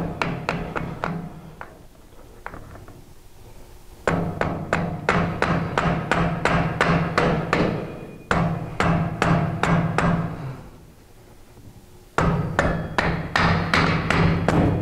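Rubber mallet hammering a motorcycle's front axle through the fork, a tight fit, in runs of quick blows about three a second with short pauses between runs.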